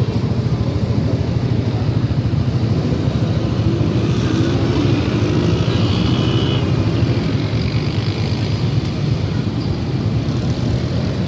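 Steady low rumble of road traffic, with motor vehicle engines running close by.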